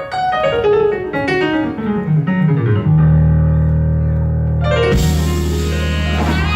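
Jazz keyboard playing a fast run that falls in pitch, landing on a low sustained chord; about five seconds in the band hits a bright crash with a new chord.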